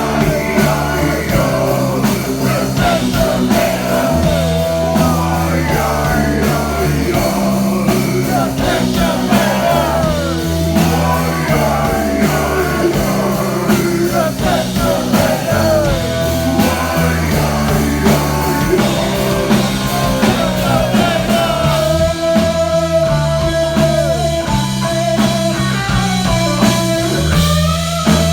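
Live rock band playing an instrumental stretch: electric guitar lead with bending notes over a steady bass line and drums.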